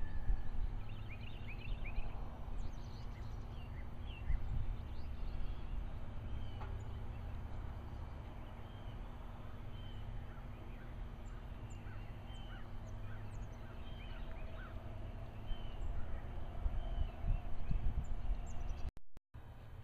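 Birds chirping in short, scattered calls over a steady low rumble, with the sound cutting out for a moment near the end.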